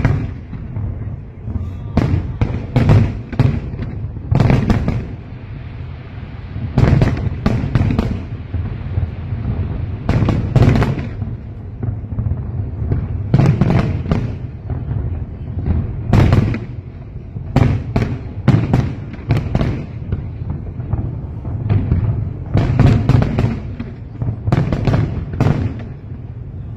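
Aerial fireworks display: shells bursting in quick clusters of two or three loud bangs every second or two, over a continuous deep rumble.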